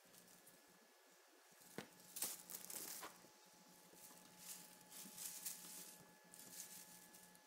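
Faint rustling and light scratching of Himalayan kittens scuffling over a feather toy, in short spells about two seconds in and again around five seconds, over near silence with a faint steady hum.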